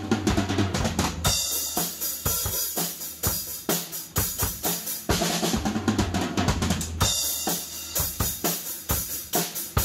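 A drum kit being played: a busy, fast groove of bass drum and snare hits with washes of cymbal.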